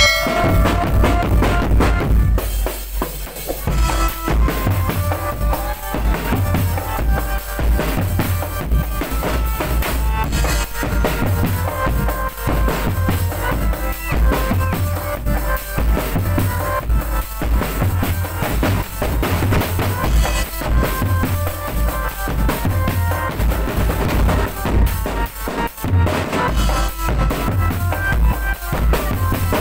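A marching drum band plays loudly: bass drums and snare drums keep up a steady, driving beat with rimshots, without a break.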